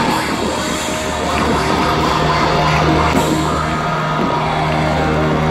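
Loud rock music from a festival sound system, with long held low notes.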